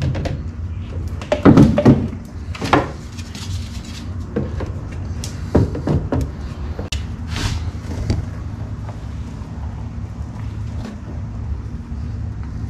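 Plastic mixing cup and bucket knocking and scraping while two-part flotation foam is poured and stirred with a wooden stick; a few short clatters, the loudest about a second and a half in, over a steady low hum.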